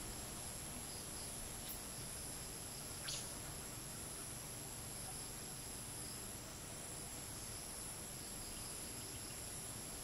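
A steady, high-pitched chorus of crickets and other insects, over a faint hiss of light wind. A brief sharp sound cuts through about three seconds in.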